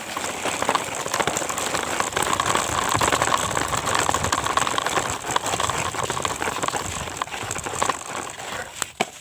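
Isuzu truck running hard off-road with heavy rattling and clatter. It builds up at the start, holds steady, and drops away near the end with a sharp click.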